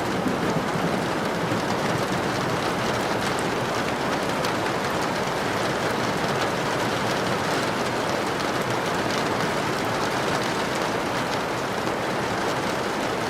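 Steady heavy rain falling, an even hiss with faint scattered drop ticks.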